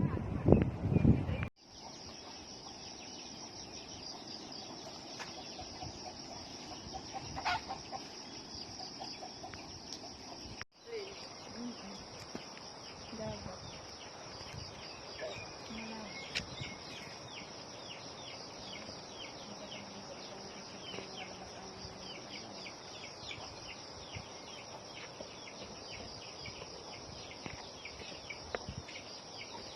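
Chickens clucking now and then over a steady high-pitched hiss, broken by two abrupt cuts, the first about a second and a half in after a brief loud stretch.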